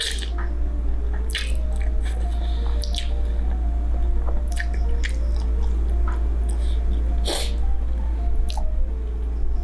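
A person slurping and chewing Korean instant ramen noodles: a series of short wet slurps, the loudest about seven seconds in. Background music plays throughout.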